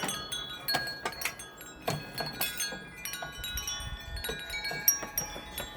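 Wind chimes ringing: a continual scatter of light metallic strikes with overlapping ringing tones.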